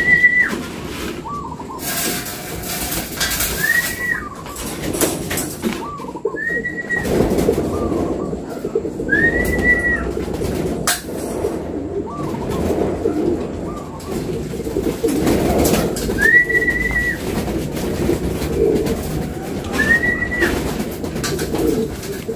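Homing pigeons cooing in their loft, with a high call that rises and holds a steady note repeating every few seconds, and a few brief rustles.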